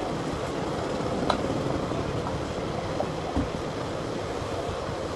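Steady rumbling street traffic noise, with a few short knocks.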